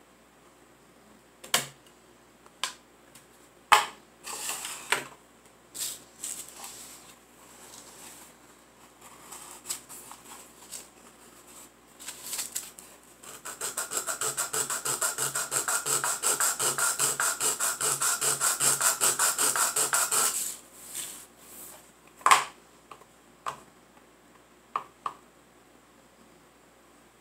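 Small wooden dollhouse stove cabinet sanded on sandpaper in quick, even back-and-forth strokes for about seven seconds in the middle. Before and after come scattered taps and knocks of the wooden piece being handled and set down on a hard table.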